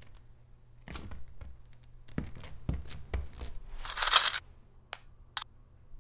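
Foley sound effects for an animated scene: a run of soft knocks and rustles, then a loud rough ripping burst about four seconds in, followed by two short sharp clicks, over a low steady hum.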